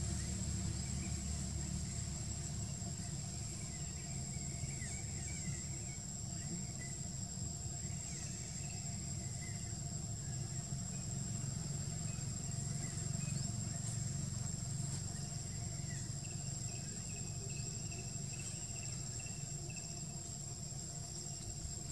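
Outdoor ambience: a steady low rumble like distant traffic or an engine under a continuous high insect drone, with scattered faint short chirps and a brief run of them near the end.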